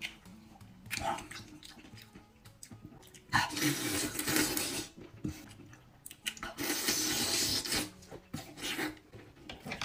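Two long, loud slurps, about three and six and a half seconds in, as cooked oysters are sucked off a skewer into the mouth, with small wet mouth clicks of chewing between.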